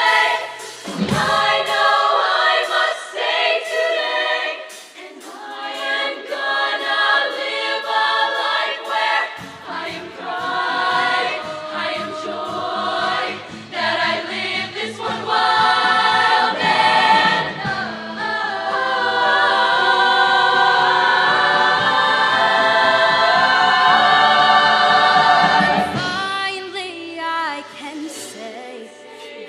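Show choir singing in many-voiced harmony. A low bass part comes in about a third of the way through, and the choir holds a long, loud chord in the second half before the sound fades near the end.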